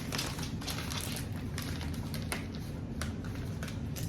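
Packaging crinkling and tapping as a dog toy is pulled and worked out of it, in a run of irregular short clicks and crackles.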